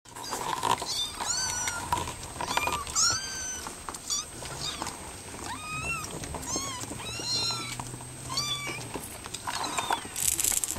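31-day-old Savannah kittens mewing: a dozen or so short, high calls, each rising and then falling in pitch, with a brief rustling noise near the end.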